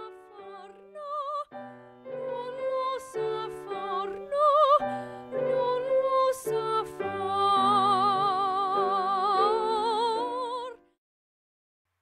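A female voice singing in operatic style with strong vibrato over instrumental accompaniment; the music cuts off abruptly near the end.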